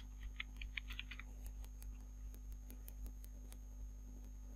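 Faint typing on a computer keyboard: a quick run of key clicks in the first second or so, then a few scattered clicks, over a steady low hum.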